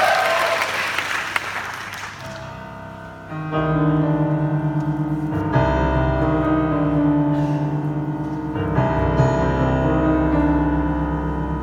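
Audience applause dies away over the first two seconds. Then a live piano comes in about three and a half seconds in, playing held chords, and deep bass notes join about two seconds later.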